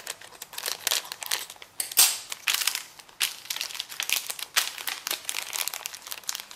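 Thin clear plastic bag crinkling in quick, irregular rustles as it is cut open with scissors and handled, the loudest crackle about two seconds in.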